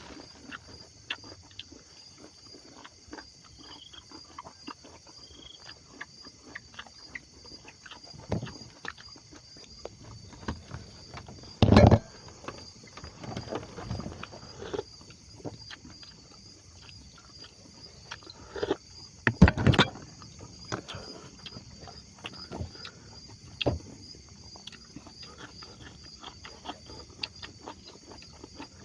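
Insects chirping steadily in a high, evenly pulsing chorus, with scattered light clicks and knocks. Two louder thumps stand out, one a little before halfway and one about two-thirds through.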